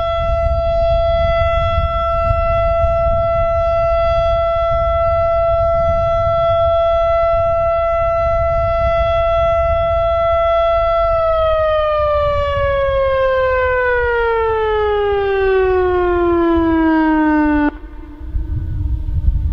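ASC Quadren Q-3200 outdoor warning siren sounding its steady Alert tone. About eleven seconds in the pitch starts falling as the siren winds down, then cuts off suddenly, leaving a fainter lower tone for a moment.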